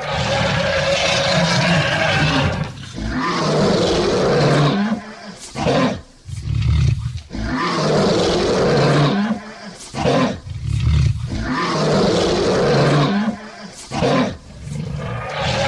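Male lion roaring: a series of long, loud roars with a few short grunts between them.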